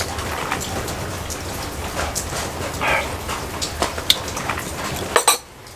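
Steady rain falling and dripping, with scattered sharp drip ticks. A short whining or whimpering sound comes about three seconds in, and a couple of sharp knocks near the end.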